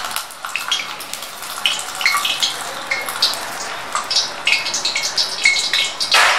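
Very hot cooking oil in a cast-iron karahi crackling and spitting with quick irregular pops as a steel ladle moves through it; the oil has just been taken off the flame after being heated until a test piece of onion fried at once.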